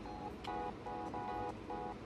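Background music: a light melody of short, evenly spaced notes, about two or three a second.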